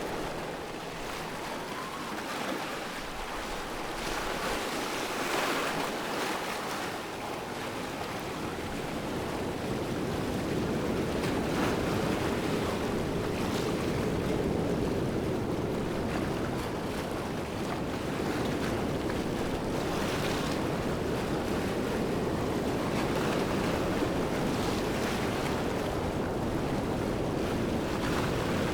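Steady rushing water of a waterfall, an even roar that swells a little louder about ten seconds in.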